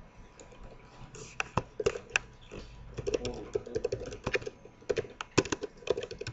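Typing on a computer keyboard: a quick, irregular run of key clicks that starts about a second in.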